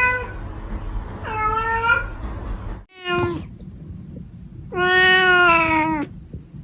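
Domestic cat meowing: four meows, the last one long and the loudest, lasting over a second about five seconds in.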